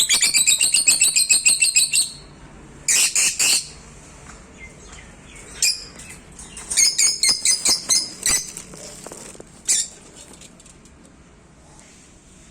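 Pet love birds, small parrots, calling in rapid runs of shrill, high chirps: a fast run of about two seconds at the start, a short burst about three seconds in, another run around seven to eight seconds in, and a lone call near ten seconds, with faint chirps between.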